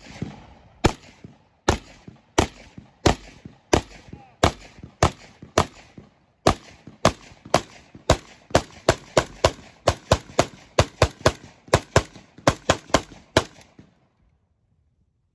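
Rapid single shots from an AR-style rifle, about thirty in all: at first roughly one every 0.7 seconds, then quickening to about three a second before stopping.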